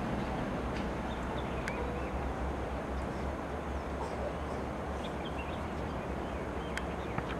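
Open-air ambience: a steady low rumble with a few faint, sparse bird chirps and an occasional light click.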